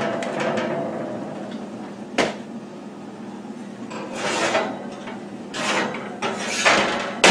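Oven rack sliding and baking pans scraping and clattering as pans of baked cinnamon rolls are pulled out of the oven, with a sharp clack about two seconds in and several short scrapes near the end, over a steady low hum.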